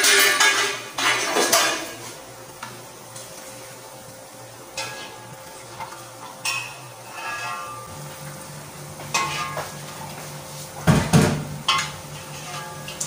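Metal pots, lids and utensils clattering and clinking on a stovetop, loudest in the first second or so and again about eleven seconds in, with lighter ringing clinks between. A low steady hum joins about eight seconds in.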